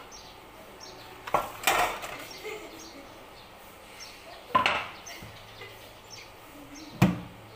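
Kitchenware being handled at the stove: separate knocks and clinks about a second and a half in and again around the middle, then a heavier knock near the end.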